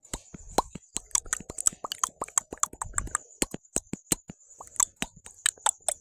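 Rapid, irregular mouth clicks and pops, tongue and lip sounds made close to the microphone, several a second.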